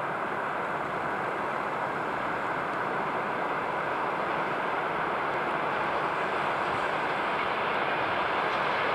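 VL80K electric locomotive hauling a freight train of tank cars, approaching: a steady rushing running noise with a faint high tone, slowly growing louder.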